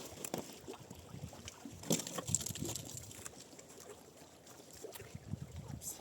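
Creek water splashing and sloshing, with irregular knocks. The sharpest splashes come about two seconds in and again near the end.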